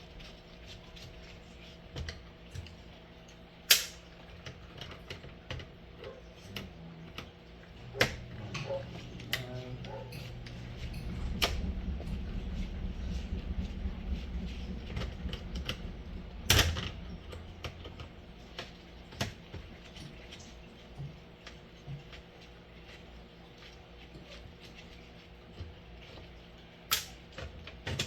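Clicks and knocks of small plastic and metal alarm-clock parts and a screwdriver being handled while the clock is taken apart, with a low hum for several seconds in the middle.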